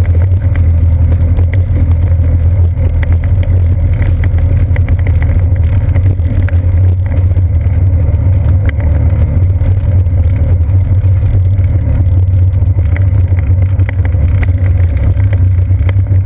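Bicycle rolling over a wooden boardwalk, heard through a seat-post-mounted action camera: a heavy, steady low rumble of frame and tyre vibration with many small irregular clicks and rattles as the tyres cross the plank joints.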